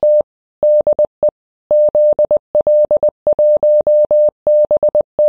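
Morse code: a single steady mid-pitched beep keyed on and off in short and long elements (dits and dahs), sent as a ham radio CW signal.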